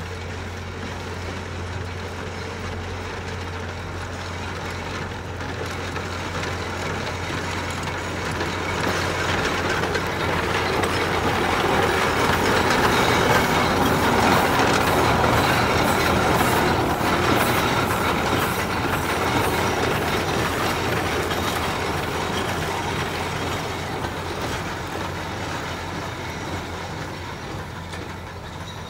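Three-cylinder Shay geared steam locomotive running past at close range. It grows louder to its loudest about halfway through, then fades as it moves away.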